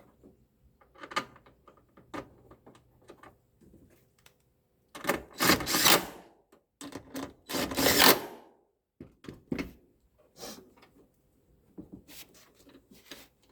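Tools and tailgate parts being handled during reassembly: scattered clicks and knocks, with two louder rasping stretches about five and seven seconds in.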